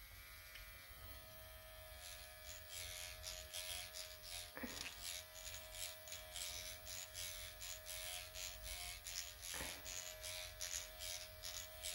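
Dr. Pen electric microneedling pen running with a steady motor hum, joined from about two seconds in by rapid scratchy strokes as the needle cartridge is worked over the skin. The hum dips briefly twice.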